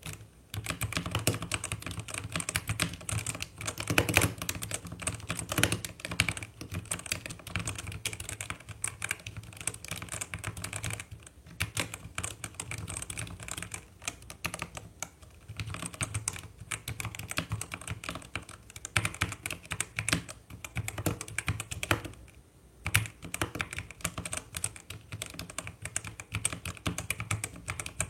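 Typing test on a Vortex Series GT-8 gasket-mount mechanical keyboard with stock Outemu Red linear switches: fast, continuous key clacks with a few short pauses.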